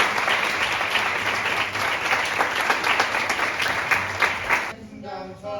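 Audience applauding, many hands clapping together, which cuts off suddenly about four and a half seconds in.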